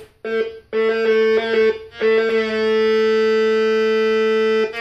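Noise Toaster analog synthesizer playing a pitched tone stepped by a circuit-bent sequencer. The tone cuts out twice in the first two seconds, then holds one steady note for about two and a half seconds. Near the end it breaks back into quick changing notes.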